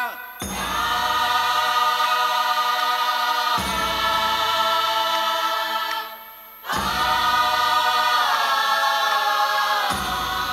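Accompaniment music of long held choir-like chords, each sustained about three seconds before the next begins, with a short pause about six seconds in.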